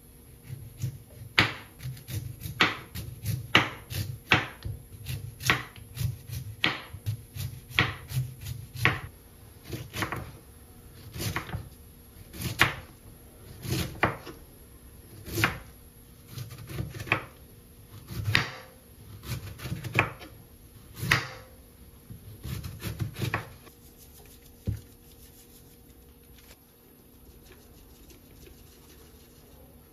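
Chef's knife cutting through a Korean radish onto a wooden cutting board: a run of sharp chops, close together at first and more spaced later. The chopping stops about twenty-three seconds in.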